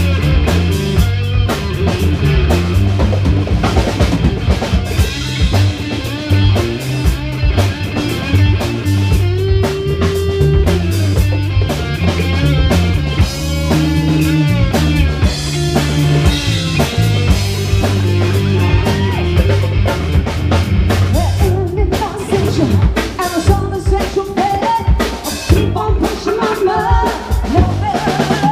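Live band playing a rock song: electric guitar and a drum kit keeping a steady beat, with singing over it.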